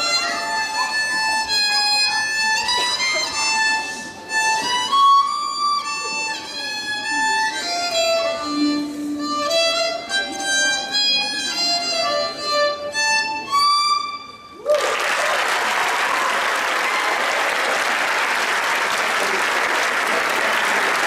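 Solo violin played by a young student: a melody of held, clearly pitched notes that ends a little past the middle. Right after it the audience breaks into steady applause that carries on to the end.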